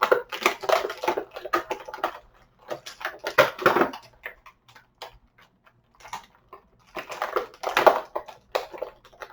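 Plastic toy packaging being handled and pulled apart, crinkling and clicking in dense bursts with a quiet lull in the middle.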